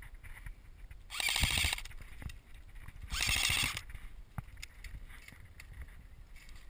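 Airsoft electric gun firing two short full-auto bursts of rapid clicks, about two seconds apart, each under a second long.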